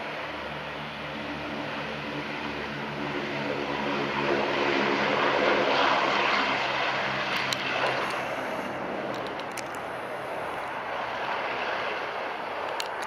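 Boeing B-17G Flying Fortress's four Wright R-1820 Cyclone radial engines at full takeoff power during the takeoff roll and lift-off: a steady propeller drone. It grows loudest about halfway through as the bomber passes, then fades as it climbs away.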